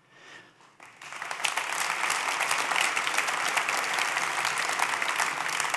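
Audience applauding, starting about a second in and quickly swelling to a steady level.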